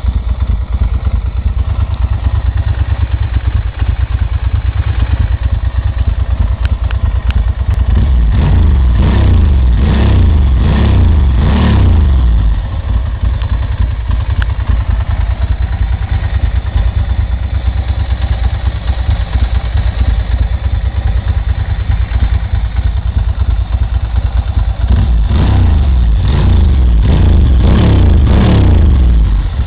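Ducati Monster 620 ie's air-cooled L-twin engine idling through an Akrapovic exhaust, with a run of quick throttle blips about a third of the way in and another run near the end, each blip rising and falling in pitch.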